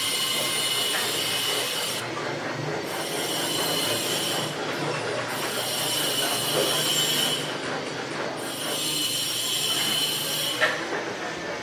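Construction-site machinery. A high, harsh noise comes in four stretches of about two seconds each with short breaks, over a steady low machine hum.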